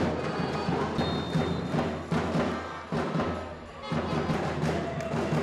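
Background music with a percussive beat, dipping briefly in loudness a little past halfway.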